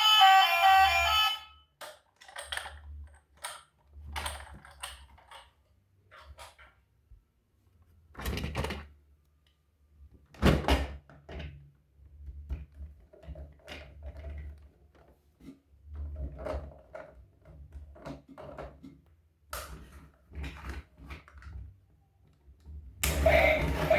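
Irregular knocks, clicks and thunks of plastic toys and packaging being handled, with a low hum underneath. Music plays briefly at the start and comes back in just before the end.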